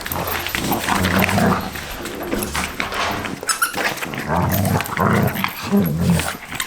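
Dogs growling and grumbling in play, in short repeated bursts, as they tussle over a plush toy.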